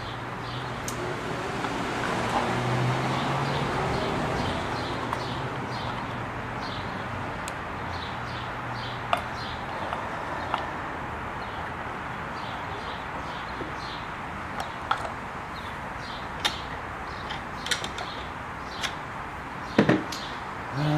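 Scattered light metal clicks and taps from handling the Singer Stylist 522's lower gears and shafts as the new gears are fitted, over steady background noise with a low hum.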